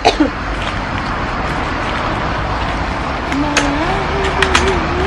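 A woman coughs once, sharply, right at the start, over a steady rush of outdoor background noise. In the second half a low wavering hum and a few sharp clicks.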